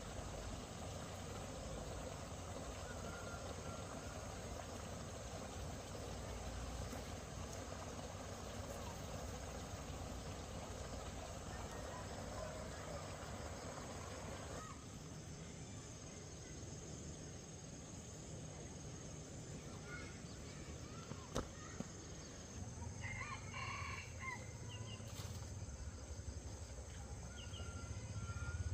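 Quiet rural ambience: a steady insect buzz that stops abruptly about halfway, then a rooster crowing about four-fifths of the way through, just after two sharp clicks.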